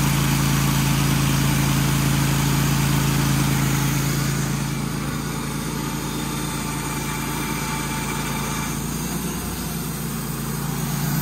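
Wood-Mizer portable band sawmill running, its engine steady while the band blade cuts along a pine log. The cutting noise eases partway through as the cut nears its end.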